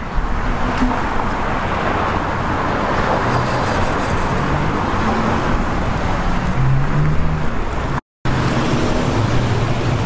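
Steady road traffic: cars passing on a city street, a continuous wash of tyre and engine noise. The sound cuts out for an instant about eight seconds in.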